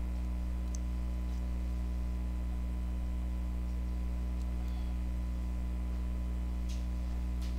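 Steady electrical mains hum, a low buzz with its overtones, and a few faint clicks.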